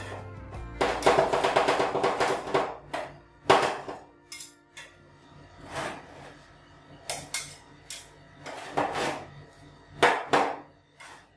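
Metal spatula blades chopping and scraping plum ice cream on a stainless-steel cold plate: a fast run of clacking strikes for the first few seconds, then slower single strikes and scrapes as the mixture is gathered into a pile.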